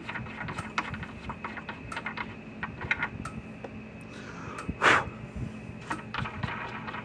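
Small clicks, taps and plastic rattles as the threaded terminal knobs of a Gallagher S200 fence charger are unscrewed by hand, with one louder short scrape about five seconds in.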